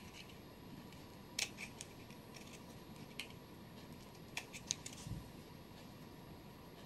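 Scissors snipping the edge of a small plastic cup: a few faint, scattered clicks of the blades closing. A soft thump comes about five seconds in.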